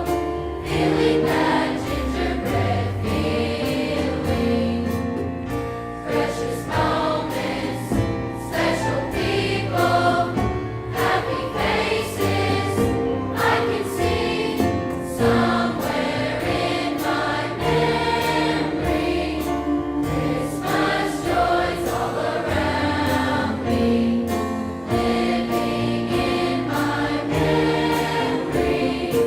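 A large high school choir singing a Christmas song, many voices together over a low, stepping bass line.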